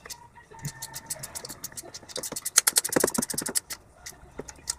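Rapid metallic clicking and scraping of hand tools and parts on the exposed camshaft and cylinder head of a Mazda MX-3 engine, busiest in a quick run of clicks through the middle.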